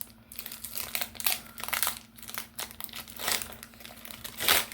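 Foil wrapper of a Pokémon TCG booster pack crinkling irregularly as it is opened by hand, with a louder rustle near the end.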